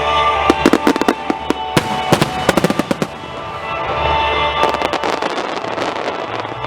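Aerial fireworks bursting and crackling in two dense clusters, each a rapid run of sharp bangs. Music plays steadily underneath.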